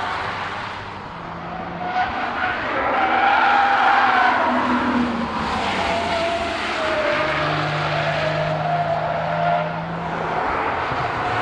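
Camouflaged BMW 4 Series Gran Coupe prototype's engine pulling hard as the car drives past at speed, its pitch rising and falling as it accelerates through the corners.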